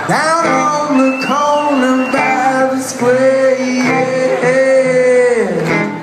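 Live acoustic folk band playing: a man singing, holding one long note in the second half, over acoustic guitar, banjo and upright bass.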